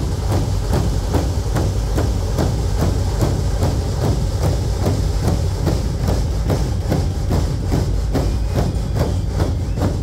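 Dhol-tasha ensemble playing: many dhol barrel drums give a heavy, continuous low rumble, struck in a steady beat of about three or four strokes a second, with tasha drums rattling high over it.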